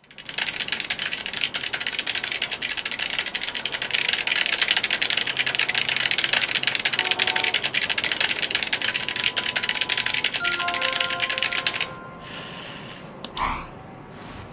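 Rapid, continuous typing on a computer keyboard that stops about twelve seconds in. Near the end comes a brief sweeping electronic sound effect, a message notification.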